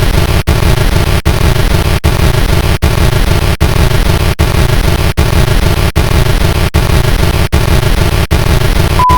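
Time's-up alarm sound effect at the end of a countdown: a loud, harsh buzzing noise pulsing a little under once a second, with a steady high beep coming in near the end.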